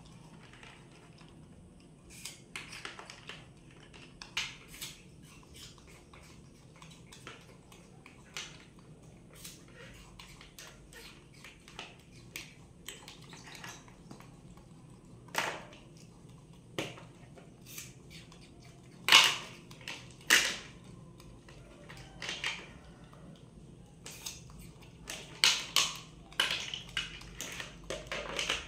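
Plastic toys clicking and knocking: a toy fishing rod and hard plastic fish toys tapping against each other and an orange plastic basin. Scattered light taps, with two louder knocks about two-thirds through and a quick run of clicks near the end.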